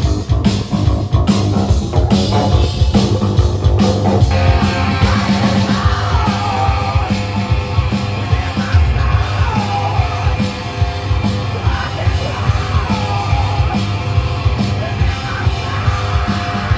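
Live rock band playing guitar, bass and drums with a steady beat, and a male lead vocal coming in about four seconds in.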